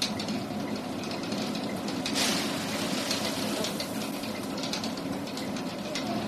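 Undershot water mill running: a steady rush of water with a faint clatter from its works.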